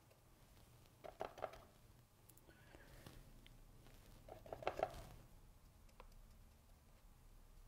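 Near silence, broken twice by short flurries of small clicks and scrapes: a paintbrush dabbing and mixing paint in a palette.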